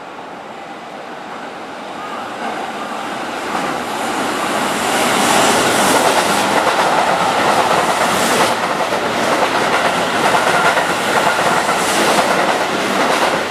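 Keihan 3000 series electric train approaching and running past along the platform, its sound swelling over the first few seconds, with wheels clattering over rail joints.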